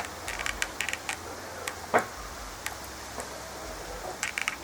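Small metallic clicks and a louder knock as the chain and tensioner of a Husqvarna 450e chainsaw are worked by hand. The clicks come in clusters near the start and the end, with one louder knock about two seconds in. The chain is being tightened yet again because it keeps working loose.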